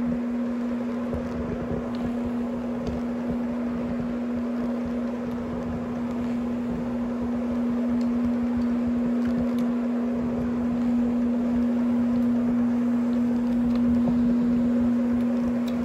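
Rotary carpet-cleaning machine running steadily as its pad scrubs a polyester carpet: a constant motor hum with a single low steady tone over the swish of the pad on the pile.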